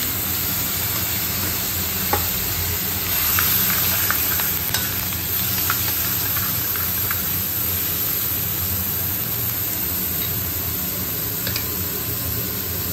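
Chopped vegetables sizzling in hot butter in a kadai while a metal spoon stirs and tosses them. A few sharp clicks come from the spoon knocking against the pan.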